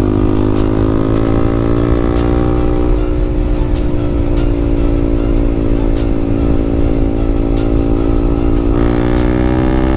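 Yamaha MT15's 155 cc single-cylinder engine running at high revs under steady throttle, held near the most speed it will reach. The pitch sags slightly, then climbs again near the end, with low wind rumble on the microphone.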